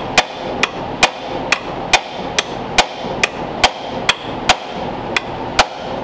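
Steady hammer blows on metal, about two a second, in an even rhythm that stops shortly before the end: knocking the cut rivet out of a Ford Model A transmission's clutch fork shaft.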